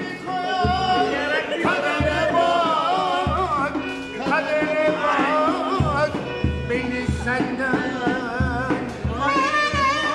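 Live Turkish folk music: a violin and a clarinet play a wavering, ornamented melody, with a man singing along over an even low beat.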